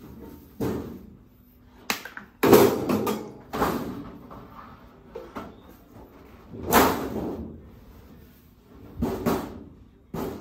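Painted steel wardrobe panels being lifted out of a cardboard box, the sheet metal knocking and thumping against the box and each other in a series of sudden bangs. The loudest come about two and a half and seven seconds in.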